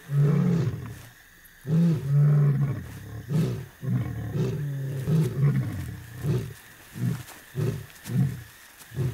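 African lion roaring: two long, deep roars near the start, then a run of shorter grunts that get shorter and closer together toward the end. This is a territorial roar, a warning to outsider lions to keep away.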